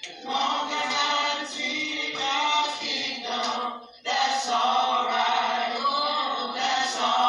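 Choir singing in long held notes, breaking off briefly about four seconds in before the voices come back in.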